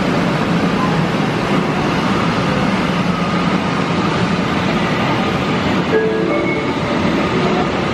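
Vienna U-Bahn U2 train moving along an underground platform: a steady rumble of wheels on rails, with a few brief higher tones near the end.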